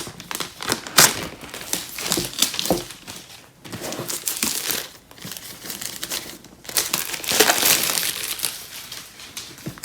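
Plastic wrapping being pulled and torn off a product box, crinkling in irregular bursts with a sharp snap about a second in; the crinkling is heaviest about seven to eight seconds in.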